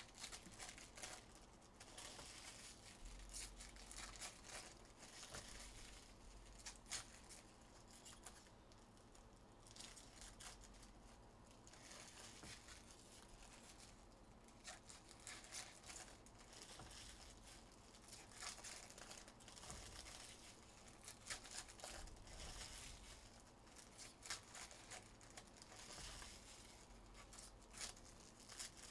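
Faint tearing and crinkling of 2023 Topps Series 2 baseball hobby pack wrappers as packs are ripped open, with irregular light clicks and rustles of cards being handled.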